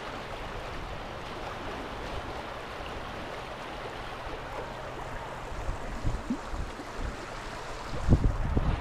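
Steady rush of shallow creek water running over sand into the lake, with small waves washing in. Wind buffets the microphone in low gusts near the end.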